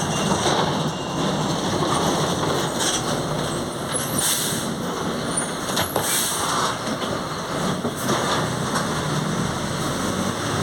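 Mercedes-Benz OF 1722M city bus running on the road, heard from on board: a steady drive-line and road drone that the title calls the differential growling, with a few sharp body rattles around the middle.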